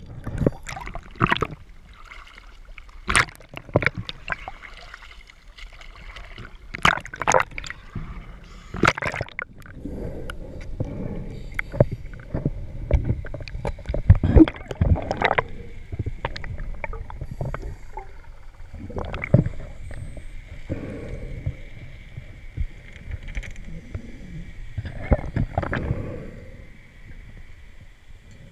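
Underwater sound of a scuba descent picked up through a camera housing: irregular bursts of bubbling and muffled knocks from diver breathing and handling, over a low rumble. A faint steady high whine sets in about ten seconds in.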